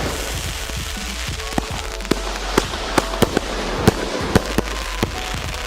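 Consumer fireworks going off: a dozen or so sharp cracks and pops at irregular intervals, over background music.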